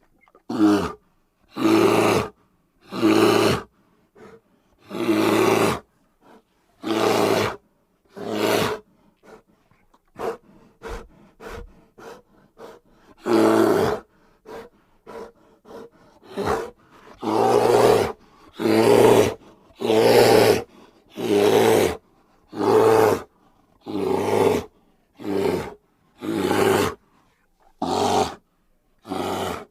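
Bear vocalizing in a long series of short, deep calls, each about a second long and coming roughly every second, with a quieter patch of small grunting sounds about a third of the way through.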